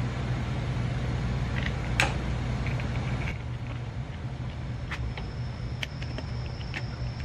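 Scattered clicks and light knocks of hands fitting parts onto an electric scooter's rear swingarm, sharpest about two seconds in and several more in the second half, over a steady low hum.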